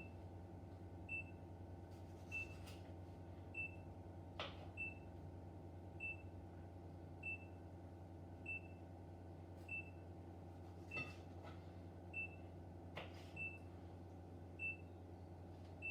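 A faint short high electronic beep repeating evenly, about every 0.6 seconds, over a steady low hum, with a few sharp clicks.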